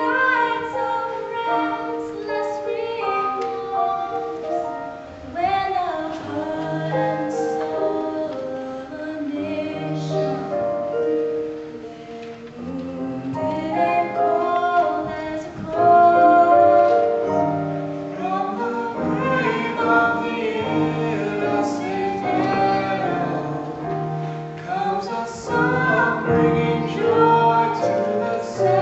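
A vocal ensemble singing a song together, with female voices to the fore.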